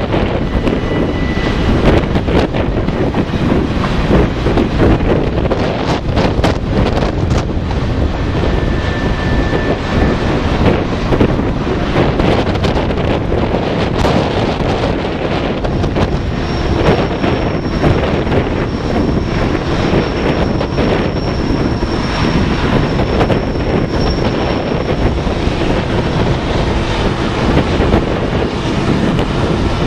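Wind buffeting the microphone over the rumble of a long Union Pacific freight train climbing the grade. Near the end, the drone of a diesel locomotive working as a distributed-power unit comes up. A thin, high squeal holds for several seconds about halfway through.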